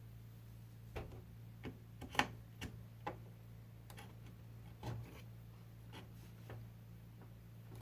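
Scattered small clicks and taps of a RAM stick being handled and pressed into a desktop motherboard's memory slot, the loudest a sharp click about two seconds in, over a steady low hum.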